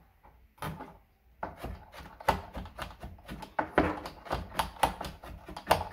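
Kitchen knife chopping fresh ginger on a plastic cutting board. A couple of chops come first, then a steady run of quick chops, about four a second, from around a second and a half in.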